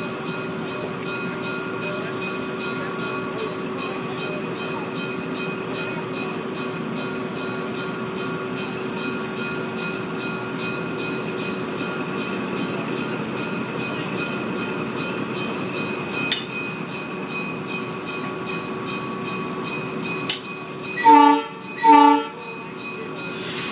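Ex-Army RS-4-TC diesel switcher locomotive idling with a steady hum, a single sharp click partway through. Near the end come two brief horn blasts about a second apart, the signal that the locomotive is about to move off.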